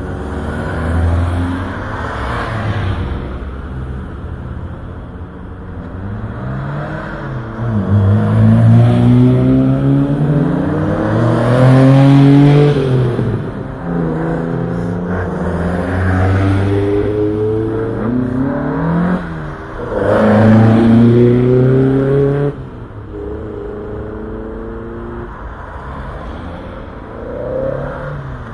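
Classic Ford cars, Mk1 and Mk2 Escorts among them, pulling away past one after another, each engine revving with its pitch rising and dropping back as it goes up through the gears. The loudest passes come about eight to thirteen seconds in and again about twenty seconds in.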